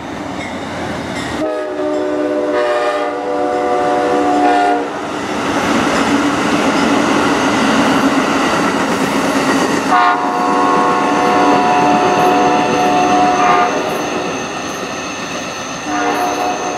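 Amtrak passenger train locomotive sounding its multi-chime horn while passing: two long blasts of about three seconds each, with a third starting near the end, and the noise of the train's wheels on the rails between blasts.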